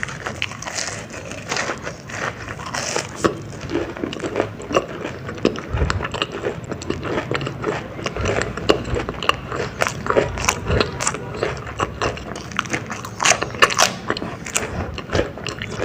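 Close-miked crunchy bites and chewing of a fried baby corn dog, a steady run of irregular crackling crunches.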